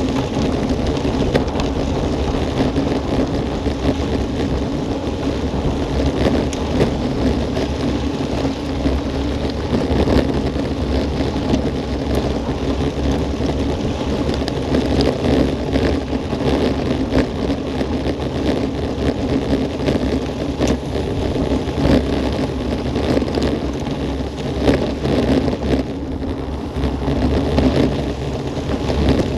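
Wind buffeting the microphone of a bike-mounted action camera and road-bike tyres rolling fast over a gravel path: a steady rumble speckled with small crackles of stones.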